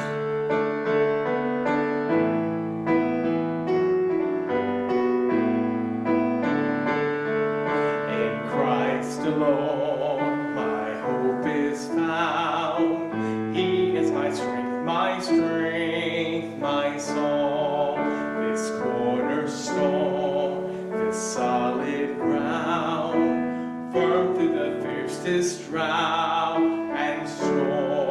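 Piano playing a slow introduction. From about eight seconds in, a man's voice sings along with it.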